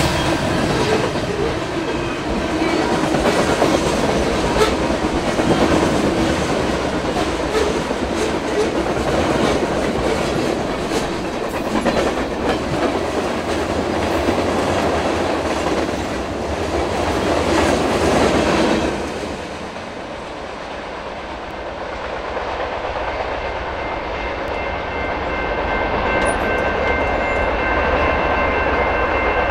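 Freight train of covered hopper cars rolling past at speed, the wheels clacking over the rail joints, with the locomotive horn trailing off at the very start. The rush of the cars drops away suddenly about 19 seconds in as the end of the train goes by. A steady ringing of the grade-crossing bell follows in the last few seconds.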